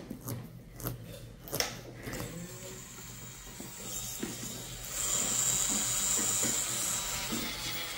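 A few sharp clicks of nail nippers cutting a toenail, then a podiatry electric nail drill running with a steady high whine that gets louder about five seconds in.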